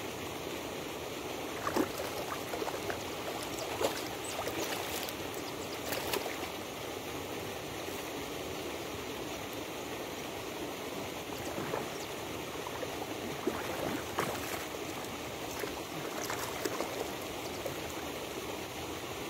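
Steady rush of splashing water from a pond aerator, with a few short clicks and knocks scattered through it.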